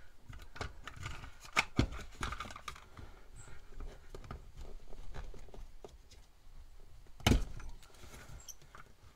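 Wire strippers working the outer sheath of old Romex cable: scattered clicks and scraping of the tool and cable against the plastic box, with two sharp clicks about a second and a half in and a louder one near the end. Old Romex is hard to strip.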